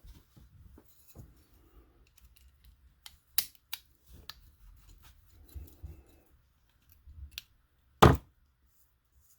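Scattered sharp clicks and taps of a small plastic RC shock absorber and tools being handled as its top cap is unscrewed, with one loud knock about eight seconds in.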